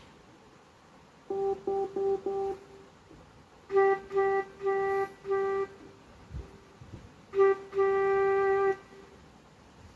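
Casio CT-X700 digital keyboard playing the same single note over and over: four short notes, four more, then a short note and a longer held one.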